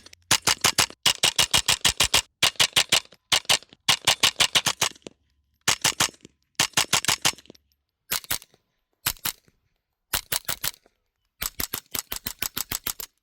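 Black Collar Arms Texas Typewriter .22 LR rifle firing rapid strings of shots, several shots a second, with short pauses between the strings.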